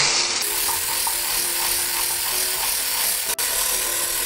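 Handheld electric whisk running steadily at high speed, whipping egg whites and powdered sugar toward stiff peaks for icing.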